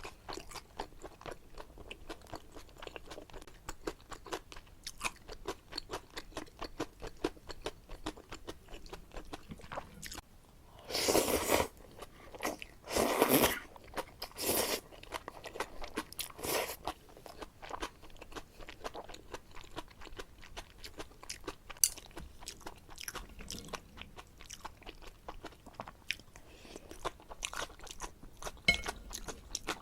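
Close-miked eating of jajangmyeon black bean noodles with shrimp and squid: a steady run of small wet chewing clicks, broken in the middle by four or five louder slurps of noodles, each about a second long.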